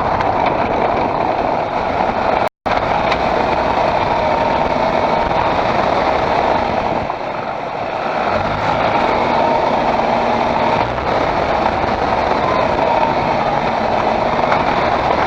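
Steady running noise of a Škoda Octavia 1.8 TSI car, with a momentary cut-out about two and a half seconds in.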